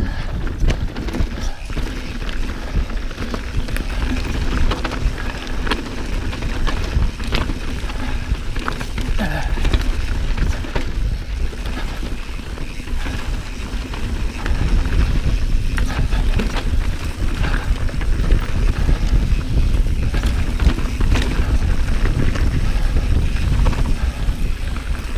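Mountain bike riding down a dirt trail. Wind buffets the camera microphone in a constant low rumble, and the tyres and frame rattle over rocks and roots in frequent clicks and knocks.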